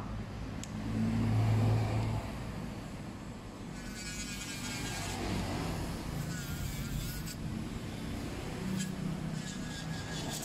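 Electric nail drill running steadily with a low hum, its bit grinding down an acrylic nail; a brighter grinding hiss comes in for a few seconds in the middle.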